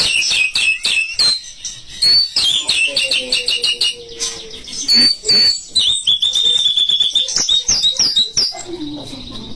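White-rumped shama (murai batu) singing a fast, varied song: quick whistled notes and trills broken by many sharp clicks, with one long steady whistle about six seconds in.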